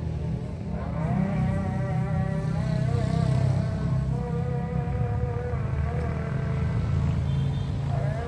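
A small engine droning steadily, its pitch rising about a second in and shifting again near the end.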